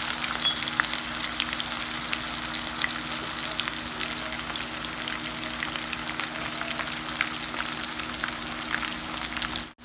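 Sliced onions frying in hot oil in a pan: a steady sizzle full of small crackling pops. It cuts off abruptly just before the end.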